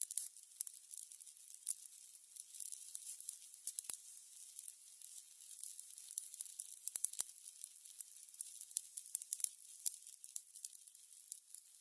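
Candles burning with a steady, fine, high-pitched crackling, dotted with a few sharper pops.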